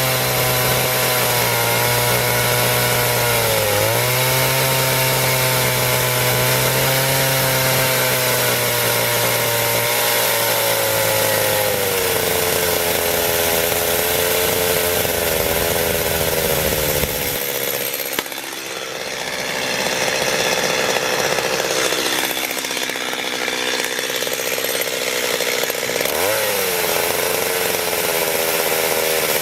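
Two-stroke chainsaw running at high revs and cutting through wood on the final cut. Its pitch dips briefly under load about four seconds in and again near the end. After about seventeen seconds the sound changes and briefly eases.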